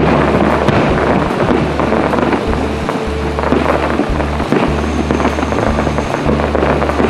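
Fireworks bursting and crackling, with music playing underneath on a low, steady bass line.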